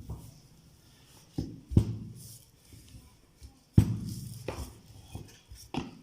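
Rolling pin working pastry dough on a worktop: about five dull knocks, with low rumbling rolls after some of them.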